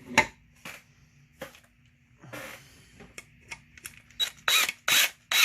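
Metal clicks and knocks as a bolt is handled and set into a chainsaw fuel tank, then from about four seconds in a run of loud, evenly spaced metallic strokes, two or three a second, as the bolt is tightened with a hand tool.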